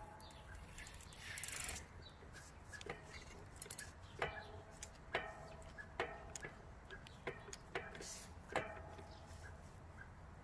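Bicycle chain on an e-bike drivetrain giving sharp metallic clicks, about one a second, each with a short ring: a stiff chain link catching as the chain runs.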